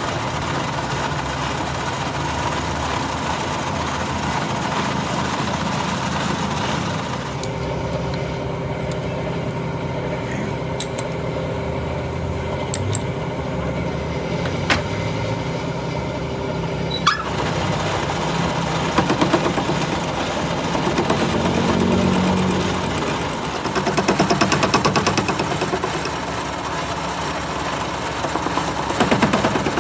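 A workshop machine running steadily, with a few sharp metallic clicks about halfway through and pulsing, rhythmic stretches later on.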